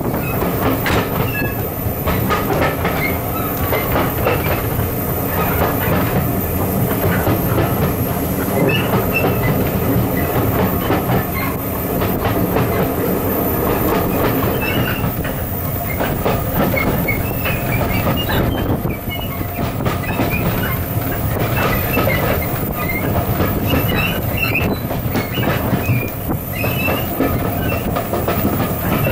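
Heritage passenger train running along the line, heard from aboard a carriage: a steady rumble of wheels on the track with clicking over the rail joints and brief, faint high wheel squeals.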